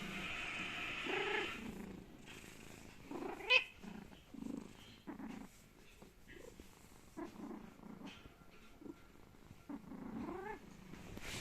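Sleeping domestic cat snoring: short, rough breaths about once a second, two of them rising into a high, squeaky whistle.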